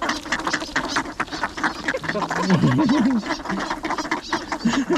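A crowd of ducks quacking and chattering close by in rapid, overlapping short calls. A brief wavering voice is heard about two seconds in.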